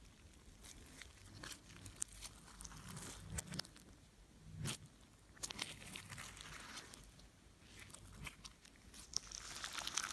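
Slime being squished and worked by hand, giving off irregular, faint crackles and clicks, denser near the end.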